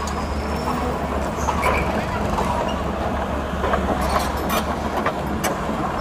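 Steady low engine rumble with scattered sharp clicks and knocks.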